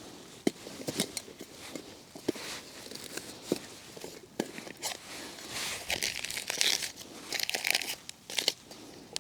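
Rustling and crinkling of packing bags, with scattered small knocks and clicks; the rustling thickens about two-thirds of the way through, as camping cooking gear is handled.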